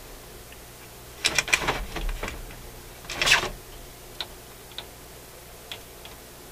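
Clatter and knocks from a Dual 1228 turntable's metal chassis and mechanism being tilted up and handled. A cluster of knocks comes about a second in and a louder clunk about three seconds in, followed by a few light ticks.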